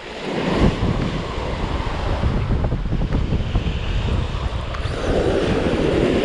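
Waves washing onto the beach, with wind rumbling on the microphone; the surf swells about half a second in and again near the end.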